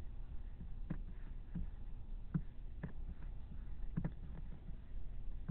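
A handful of light, irregular clicks from a computer mouse, over a steady low hum.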